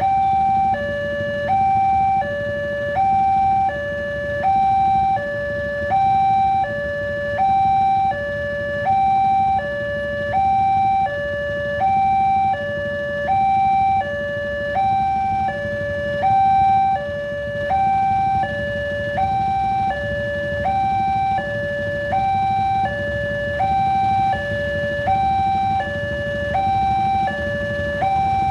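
Railway level-crossing warning alarm sounding, an electronic two-tone signal that alternates evenly between a lower and a higher note about once a second, warning that a train is approaching or passing. A steady low rumble runs underneath.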